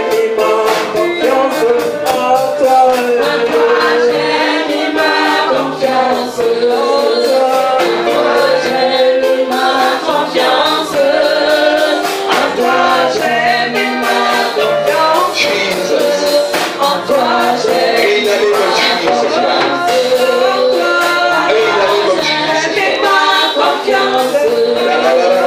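Congregation worship song sung live by several voices, with electric bass guitar and a steady percussive beat.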